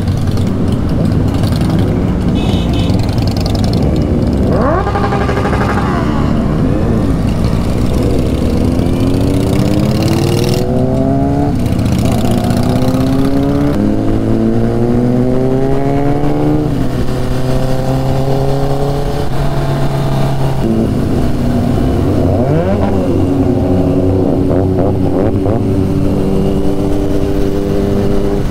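Motorcycle engine riding in traffic, its pitch climbing repeatedly as it accelerates and dropping back at each gear change, with other vehicles passing.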